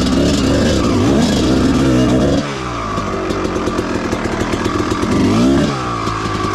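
Two-stroke dirt bike engine revving up and down as it is ridden. The revs drop to a lower, steadier run about two and a half seconds in, then rise and fall once more near the end.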